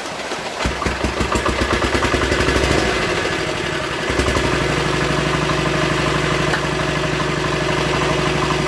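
A generator engine starts about a second in and runs unevenly for a few seconds. About four seconds in it settles into a steady run. A steady hiss of heavy rain lies under it.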